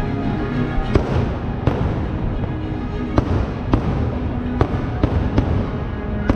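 Aerial fireworks shells bursting in a string of about eight sharp bangs at irregular gaps, over continuous music.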